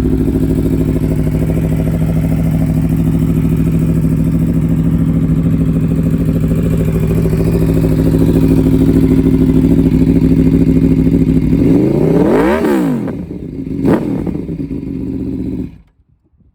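Aprilia Tuono V4 1100 RR's V4 engine, with an aftermarket exhaust, idling steadily. About twelve seconds in, the throttle is blipped twice, a rise and fall and then a shorter sharp rev, before the engine settles back to idle and cuts off suddenly near the end: it is shut down.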